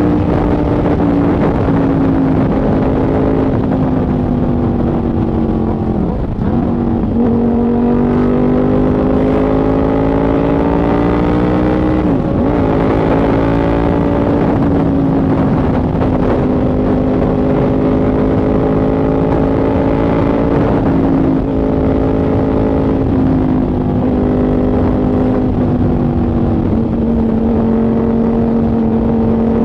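KTM 990 Super Duke's V-twin engine running steadily under way. Its pitch dips sharply and comes straight back up twice, about six and twelve seconds in, and sinks slowly near the end.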